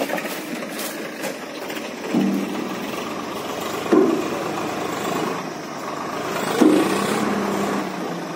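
Diesel farm tractor engine running as it pulls a trailer loaded with heavy logs, with short louder surges in its note about two, four and nearly seven seconds in.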